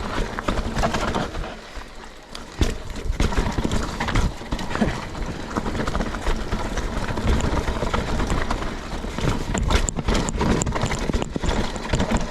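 Mountain bike clattering over rough, rocky trail: a fast, irregular run of knocks and rattles as the tyres hit rocks and the bike shakes.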